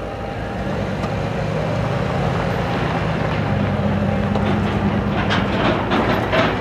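GMC Sierra 2500HD pickup truck pulling away slowly while towing a loaded gooseneck trailer, its engine hum swelling about a second in, with rattling near the end.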